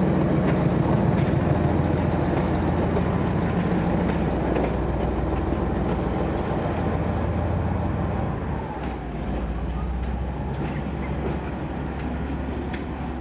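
Lxd2 narrow-gauge diesel locomotive's engine running as it passes close by and pulls away, its low steady hum fading with distance and dropping noticeably about two-thirds of the way through.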